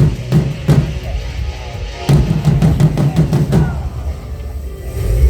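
Music with a drum-kit beat and heavy bass; the drum hits come thick for a stretch and fall away near the end.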